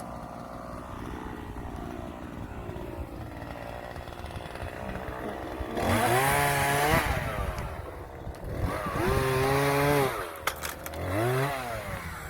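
Two-stroke chainsaw idling, then revved up hard three times in the second half, each burst rising and falling in pitch.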